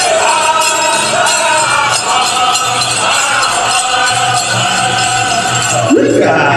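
Powwow drum group singing a chicken dance song in a loud group chorus over a steady drumbeat, with the dancers' bells jingling. Near the end a short, sharp sound sweeps upward.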